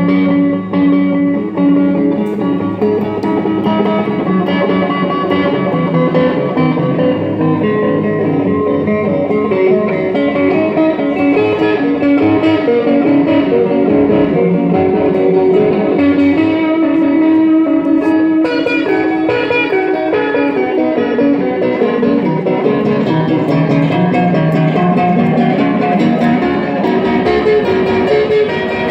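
Electric guitar played through a Korg SDD-3000 digital delay pedal and amplifier: continuous melodic playing with notes overlapping one another. The tone turns brighter about two-thirds of the way through.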